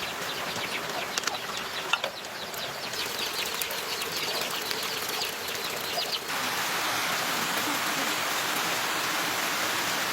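Rain falling, with many small drop ticks for about the first six seconds, then switching abruptly to a steady, even hiss.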